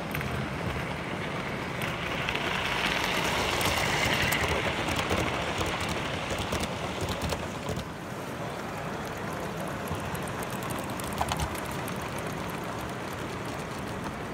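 Gauge 1 model trains running on the track: a steady rumble and clatter of wheels with fine clicks, loudest a few seconds in as a train passes close. About halfway through it gives way to a slightly quieter, steady running of a second train.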